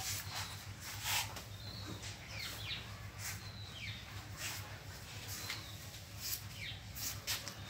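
Small birds chirping over and over, short falling chirps, over a low steady hum.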